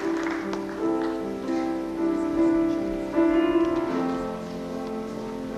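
Piano playing slow, sustained notes and chords, with the tail of applause dying away at the start.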